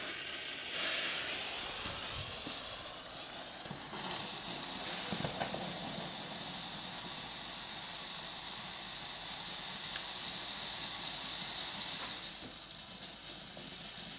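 Two small ground fountain fireworks (Helios Feuerwerk 'Geisterlichter', one green, one red) hissing as they spray sparks. The hiss starts suddenly as they catch, grows fuller about four seconds in, and thins out about twelve seconds in as they burn down.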